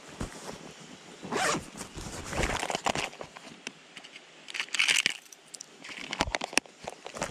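Close handling noise of a small clear plastic lure box being opened and rummaged through: several short rustling, scraping bursts with a few sharp plastic clicks near the end.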